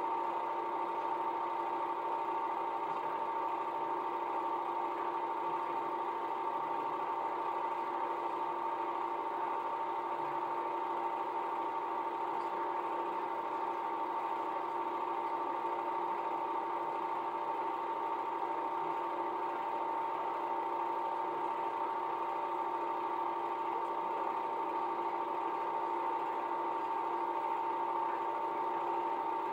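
Home-movie film projector running: a steady mechanical whir with two constant humming tones, unchanging throughout.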